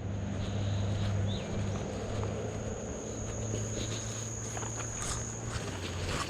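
Insects trilling in one steady high unbroken note, over a low steady hum, with a few soft clicks and crunches in the second half.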